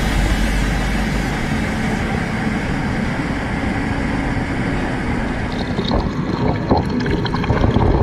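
Waterfall water rushing and splashing over rocks, heard close up with the spray washing over the camera, a steady rush with a few sharper splashes in the last two seconds.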